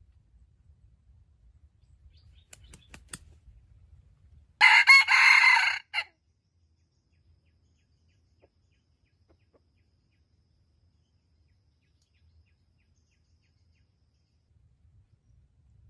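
Red junglefowl rooster crowing once, a short harsh crow of about a second and a half a little under five seconds in. A few faint clicks come shortly before it.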